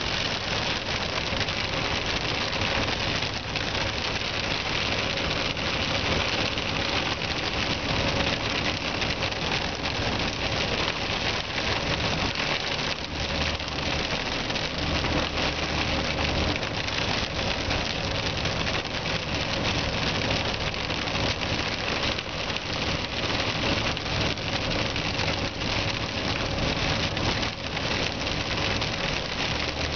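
Heavy rain pelting the windshield and roof, heard from inside a moving car, over a steady low engine and road hum.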